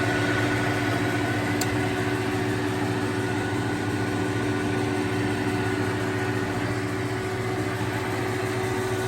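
LeBlond Makino Regal engine lathe running under power, its spindle turning at a low speed, with a steady hum of the headstock gearing and motor carrying several even tones.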